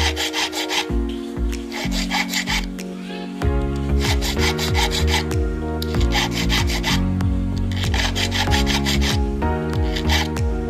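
Short runs of rapid rasping strokes from a hand tool working the silver ring, repeating every second or two, over background music with sustained chords and a bass line.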